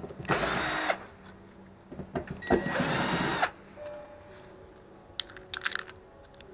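Two short runs of a power tool, the second about two seconds after the first and a little longer, followed by a few light clicks and rattles of parts being handled.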